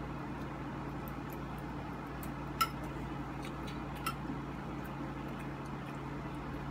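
Forks and spoons clinking lightly on dinner plates as two children eat: a few faint clicks, the sharpest about two and a half seconds in and another about four seconds in, over a steady low hum.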